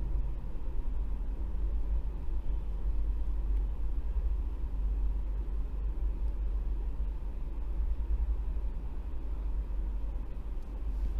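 Steady low rumble of background noise, with a faint hiss above it.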